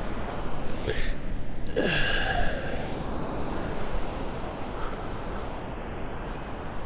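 Wind on the microphone with surf behind it, and a short falling breath-like or call-like sound about two seconds in.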